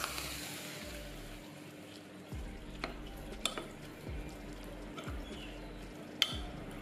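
Metal spoon stirring a wet mix of chopped green onion and ginger in a ceramic bowl, with a few sharp clinks of the spoon against the bowl, the loudest near the end. The sizzle of freshly poured hot oil dies away in the first second.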